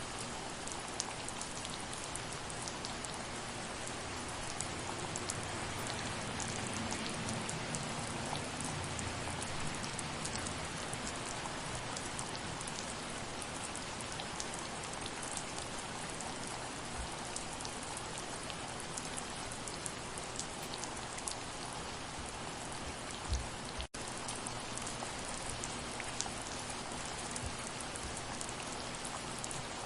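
Steady rain falling, with many single drops ticking sharply over the even hiss. About two-thirds of the way in there is a brief low thump, then the sound drops out for a split second and resumes.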